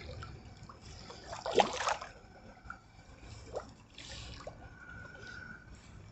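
Water splashing and trickling as a slingshot-shot armored catfish is drawn in on the arrow's line through shallow water, with the loudest splash about a second and a half in.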